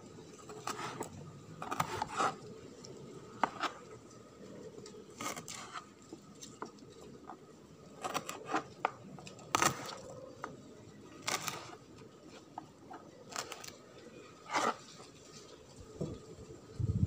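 A kitchen knife slicing through crisp leafy-green stalks onto a plastic cutting board. The cuts come as sharp, irregular taps, about one every second or so.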